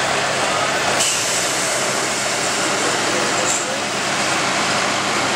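Diesel engine of a large four-wheel-drive Case International farm tractor running steadily.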